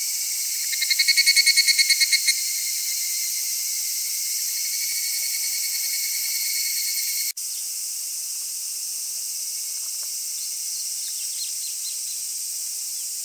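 Dense, steady chorus of cicadas and other insects, with a higurashi (evening cicada) giving a loud pulsed run of about ten quick notes about a second in. The level drops a little and suddenly about seven seconds in, and the chorus carries on with a few faint chirps.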